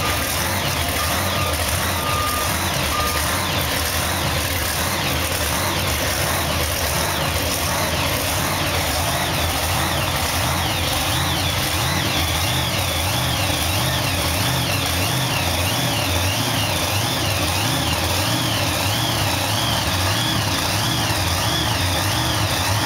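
Iron Man monster truck's supercharged V8 running at a steady low idle as the truck creeps forward. A few short beeps sound in the first few seconds. From about halfway a high warbling warning tone rises and falls about one and a half times a second over the engine.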